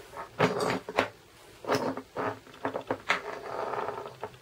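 Brass tubes and clear acrylic discs of a coilgun barrel being handled and fitted end to end on a tabletop: a run of sharp clicks and knocks, then a longer scrape about three and a half seconds in as a tube slides through the discs.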